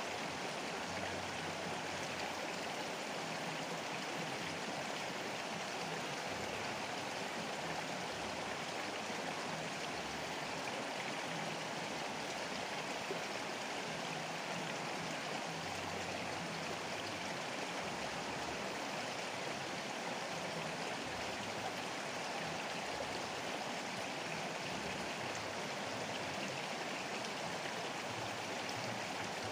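Fast-flowing river rushing steadily past the bank, a constant, even wash of water noise.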